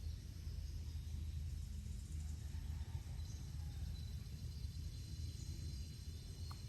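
Outdoor rural ambience: a steady high-pitched insect trilling over a constant low rumble.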